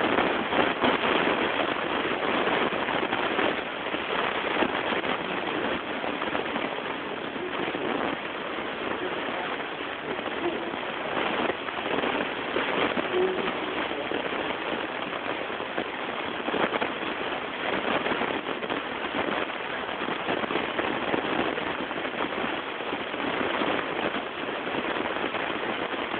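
Steady rushing noise, like static or rain, with no voice in it: the recording's audio track was lost, leaving only noise.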